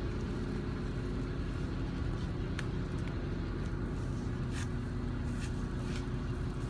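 Steady low drone of a ship's running machinery, with a few faint clicks over it.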